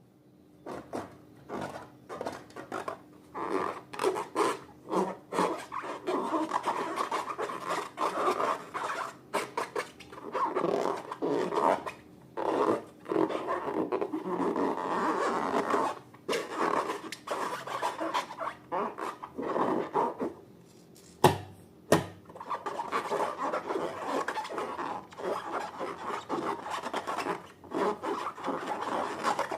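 Slime being mixed and worked: repeated rubbing, scraping strokes in quick irregular bursts. Two sharp knocks under a second apart come about three quarters of the way through.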